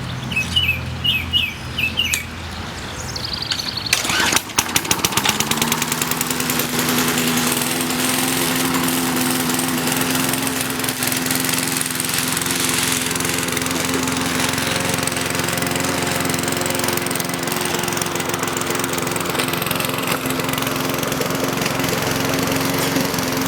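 Petrol lawn mower engine starting about four seconds in: a quick run of firing strokes as it catches, a short rise in pitch, then steady running at one speed. A few bird chirps come before it starts.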